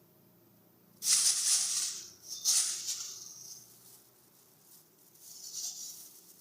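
Plastic crinkling and rustling in three bursts as a kitten plays with it; the first burst, about a second in, is the loudest.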